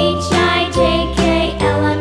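Children's background music with a bright, tinkling melody over a steady beat.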